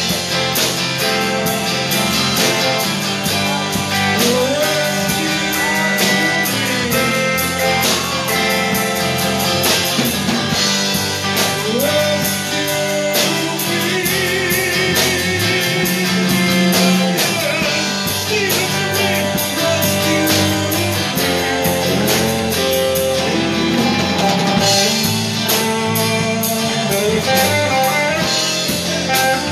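Live blues band playing with electric guitars, bass guitar and drum kit, to a steady drum beat with bent and wavering guitar notes.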